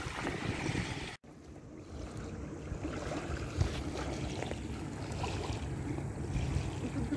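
Strong wind buffeting the microphone in a low rumble, over small waves lapping at the shore. The sound drops out for an instant about a second in, then the wind rumble carries on.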